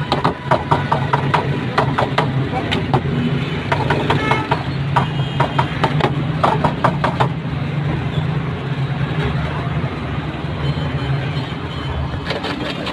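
Rapid clattering and clinking, some strokes ringing briefly like metal, thinning out about seven seconds in and picking up again near the end, over a steady low hum and street noise with voices in the background.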